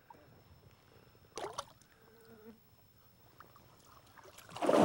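Water splashing at the side of a boat as a northern pike is let go by hand: a short splash about a second and a half in, then a louder, longer splash building near the end.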